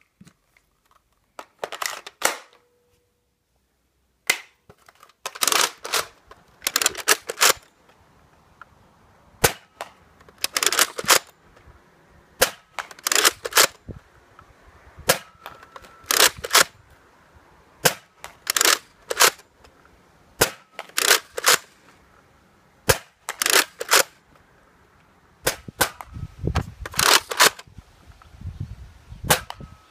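Nerf Rival Apollo XV-700 spring-powered foam-ball blaster being primed and fired over and over, a short burst of sharp clacks every two to three seconds. A few lighter clicks come first.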